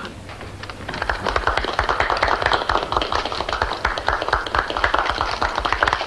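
Applause from a small group of people, many hands clapping unevenly, starting about a second in and settling into steady clapping.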